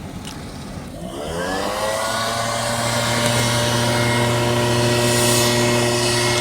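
Leaf blower speeding up about a second in, its pitch rising and then holding steady as it runs at high speed.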